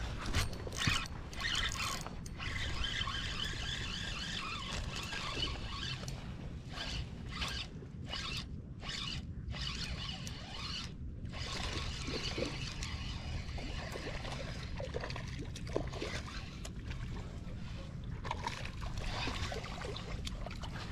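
Spinning reel cranked to retrieve a lure, its gears whirring in stretches with short pauses, over a low rumble of wind on the microphone.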